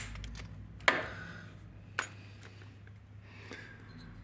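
Two sharp metallic clinks about a second apart, with light handling noise, as the metal hose clamp and hand tools are worked on a motorcycle carburetor's intake boot.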